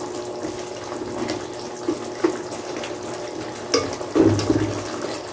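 Chicken in tomato sauce simmering and bubbling in a pan while a wooden spatula stirs through it, with a few light knocks of the spatula against the pan.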